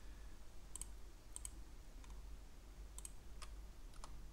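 A handful of separate clicks from computer keyboard keys and mouse buttons, spaced unevenly, over a faint steady low hum.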